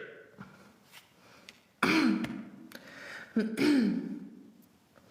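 The tail of a burp fades at the start, then a woman makes two short throaty sounds about a second and a half apart, each dropping in pitch, while working up a big burp.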